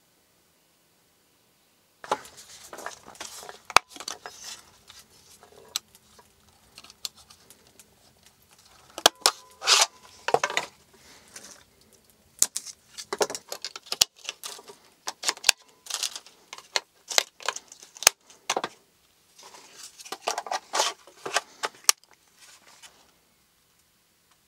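After about two seconds of near silence, small hard objects are handled on a wooden table: irregular clicks, taps and rattles in bursts, with a few sharper knocks.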